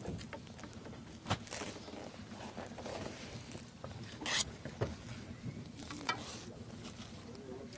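Faint handling noise as the sections of a fishing rod are fitted together: a few scattered sharp clicks and light rustles over a low steady hum.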